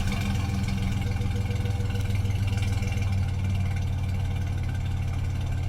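1990 Toyota 4Runner's engine running steadily at an even pitch.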